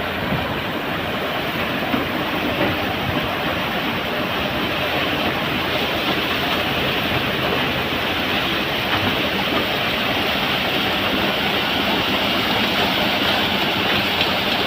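Excavator's diesel engine running steadily, a continuous noisy rumble that grows slightly louder near the end.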